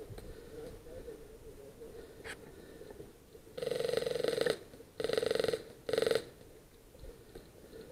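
Airsoft electric rifle (AEG) firing three short full-auto bursts, a buzzing motor-and-gearbox whir with rapid ticking, the first about three and a half seconds in and the last two quickly after, each shorter than the one before.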